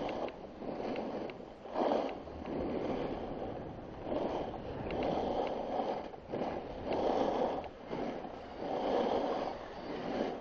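Snowboard sliding down a groomed piste, a rough scraping noise that rises and falls in repeated swells.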